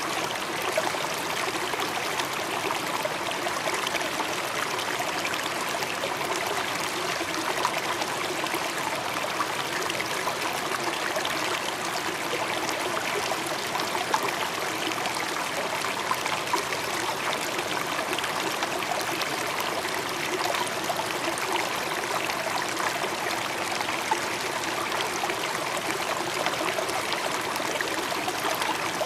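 Stream water running and trickling steadily, an even rush with small splashes.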